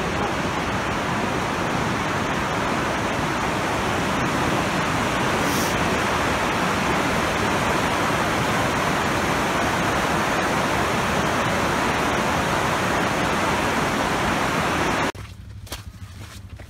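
Steady rush of whitewater from a river running through rapids below, which cuts off abruptly about fifteen seconds in. A much quieter stretch follows, with a few faint footsteps on a dirt trail.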